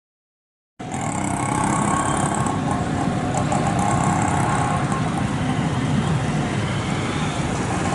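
Steady traffic and road noise heard from a vehicle moving along a town street, with an engine hum under it. It starts about a second in, after a moment of dead silence.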